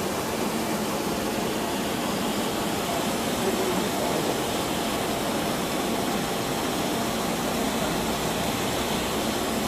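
Spiral paper tube making machine (TZ-ZJ-A) running, winding paper strip into a core: a steady, even mechanical noise with no breaks.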